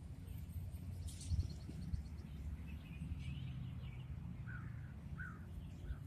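Birds chirping in short scattered bursts over a steady low rumble of wind on the microphone; two clearer short calls come about four and a half and five seconds in.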